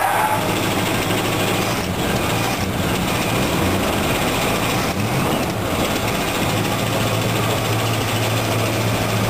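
Chrysler V8 in an old Plymouth running, its throttle opened a little by hand at the carburettor. Engine speed rises about five seconds in, then holds steady.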